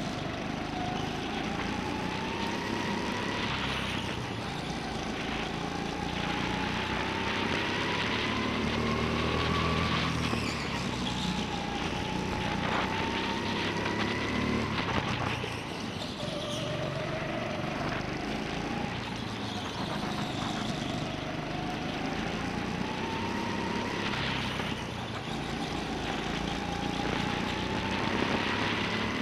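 Go-kart motor heard onboard, its pitch climbing steadily for several seconds as the kart accelerates, then dropping off as it slows for a corner, about four times over, with a rumble and rushing noise underneath.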